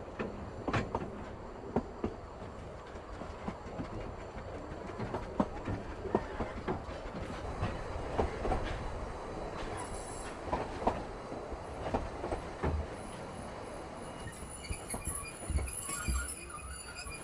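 Narrow-gauge steam train running along the line, its wheels clicking irregularly over rail joints over a steady rumble, with a faint high wheel squeal in the last few seconds.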